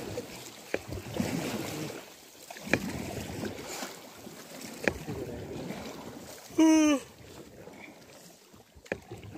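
Rowboat being rowed across a lake: a sharp knock from the oars about every two seconds over a steady hiss of water. About seven seconds in there is one loud, short, pitched squeak that drops slightly at its end.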